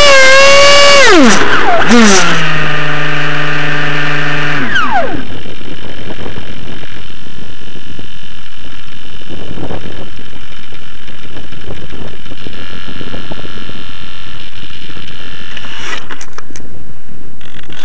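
70 mm electric ducted fan of an RC jet, heard through its onboard camera, whining high and then falling as it spools down on landing, with a short blip about two seconds in and a low hum that dies out around five seconds in. After that a steady loud hiss, with a few clicks and rustles near the end.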